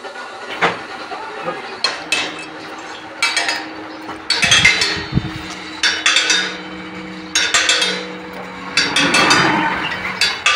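Metal being struck with a hammer: irregular ringing clanks, some single and some in quick clusters, the sound of ironwork being hammered.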